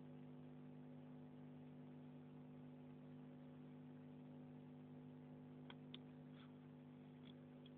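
Near silence: a steady low electrical hum, with a few faint ticks in the last two seconds.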